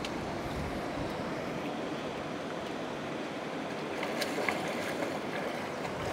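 Shallow seawater lapping and washing steadily, with a few sharp little splashes about four seconds in.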